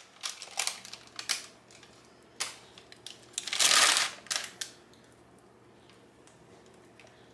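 Silicone spatula scraping and clicking against a saucepan as thick fudge is scraped out into a parchment-lined dish. A louder rustle of parchment paper comes about three and a half seconds in. The sounds stop about five seconds in.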